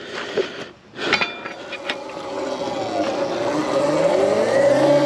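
Electric dirt bike's hub-less mid-drive motor whining as the bike accelerates, several tones gliding upward over the last couple of seconds, over a growing rush of wind. A few sharp knocks about a second in.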